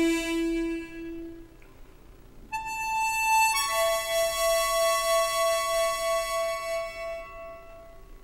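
Solo harmonica playing closing notes: a held note that stops about a second and a half in, then after a short pause a brief high note and a long final note with a pulsing vibrato that fades out near the end.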